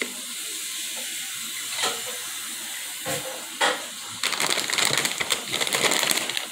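Steady hiss from a poor phone microphone with a few handling knocks, then, about four seconds in, a crinkly plastic Tostitos tortilla chip bag being grabbed and handled for about two seconds.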